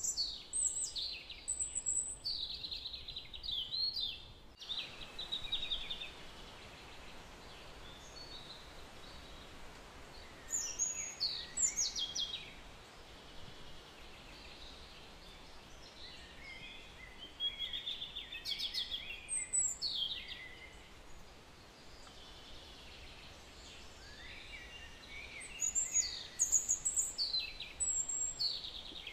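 Birds singing: clusters of high chirps and falling whistled notes every several seconds over a steady background hiss.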